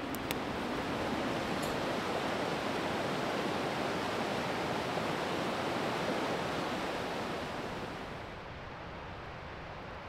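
Steady rushing of a mountain stream. About eight seconds in, it drops a little and sounds duller.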